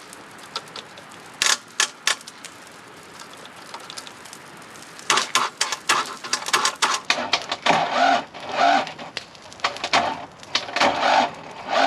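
Excavator starter circuit clicking and chattering in repeated bursts from about five seconds in, after a few single clicks: a jumper pack too weak to crank the engine over.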